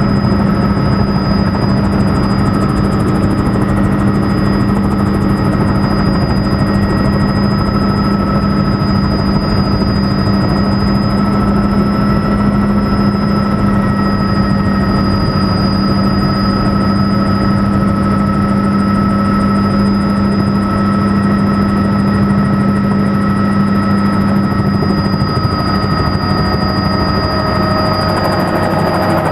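Helicopter in flight, heard from inside the cabin: a loud, steady drone of rotor and engine with constant high whines laid over it, unchanging throughout.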